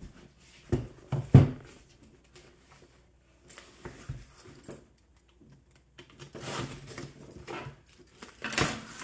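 Cardboard shipping box knocked down twice on a wooden tabletop and handled, then its taped lid pulled open with rustling and tearing of tape and cardboard, loudest near the end.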